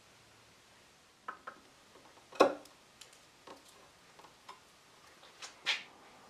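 A few scattered light clicks and taps from handling at a workbench. The loudest comes about two and a half seconds in and another near the end.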